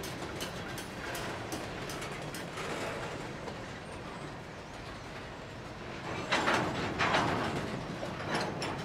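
Grain train's covered hopper cars rolling past: a steady rumble of steel wheels on rail with scattered clicks. Louder clattering comes as wheel sets pass, about six to seven seconds in and again near the end.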